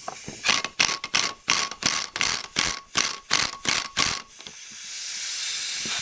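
Chicago Pneumatic air impact wrench hammering in quick pulses, about four a second, on the nut of a makeshift ball joint puller, working the old ball joint out of the ATV's front knuckle. Near the end the hammering stops and a hiss grows louder.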